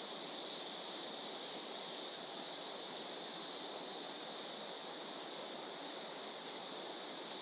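Steady high-pitched chorus of periodical (17-year) cicadas, an unbroken drone with no rise or fall, over a fainter even hiss.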